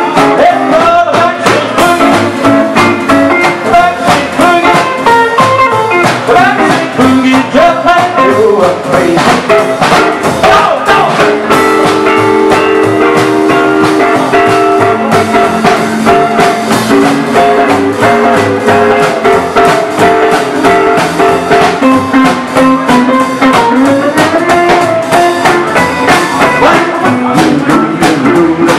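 Live band playing a blues-tinged rock and roll number on guitars, upright double bass and drum kit, with a steady beat.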